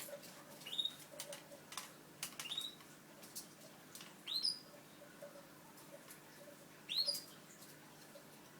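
Canaries giving short rising cheeps, four in all, the last two loudest, among faint ticks and rustles.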